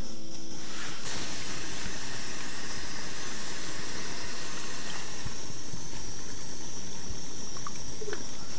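Small gas canister stove burning inside a tent: a steady hiss under a pot of water being heated.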